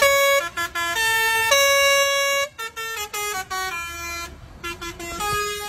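Lorry's telolet horn, a multi-tone musical air horn, playing a quick tune of stepped notes, with one note held for about a second near the middle. It grows quieter after about two and a half seconds.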